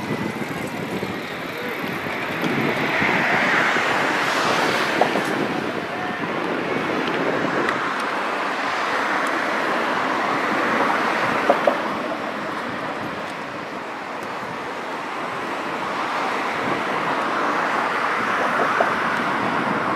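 Steady outdoor rumble of traffic mixed with wind on the microphone, swelling and easing every few seconds, with a few faint ticks.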